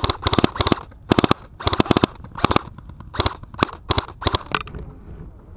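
Airsoft rifle firing short rapid bursts, about nine of them, as suppressing fire; the firing stops a little over four seconds in.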